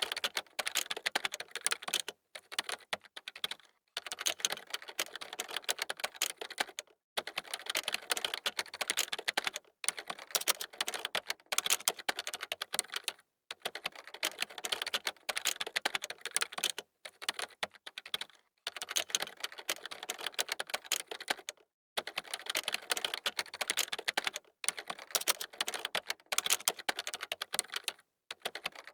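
Computer keyboard typing: fast runs of key clicks in bursts of a second or few, broken by short pauses.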